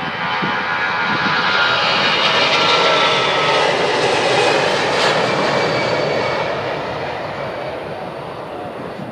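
Airbus A340-300's four CFM56-5C turbofan engines at takeoff thrust during the takeoff roll, a jet roar with a high engine whine. It swells to its loudest about three seconds in as the airliner passes, the whine dipping in pitch, then fades as it moves away down the runway.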